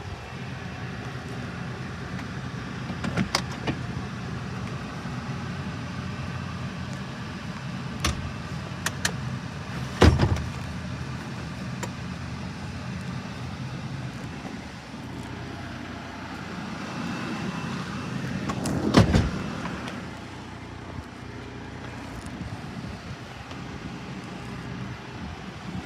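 Nissan Dayz Roox's 660 cc three-cylinder engine idling steadily, with a few clicks and two louder thumps about ten and nineteen seconds in, like doors or fittings being worked during an operation check; the second thump follows a short rising run-up, like a sliding door closing and latching.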